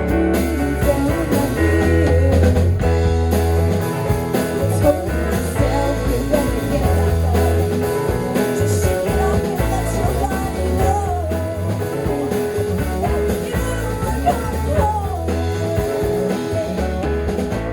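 Live rock band playing a song: electric guitar over bass guitar and drum kit, with a strong, steady bass line.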